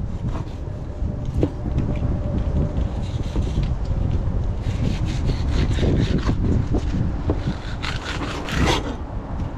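Long knife scraping and slicing along porgy fillets and the fish's bones on a stone tabletop, in short strokes that come thickest in the second half. Wind rumbles on the microphone throughout.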